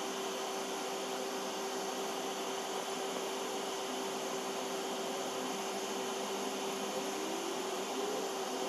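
Steady machine hum: a constant low tone over an even hiss.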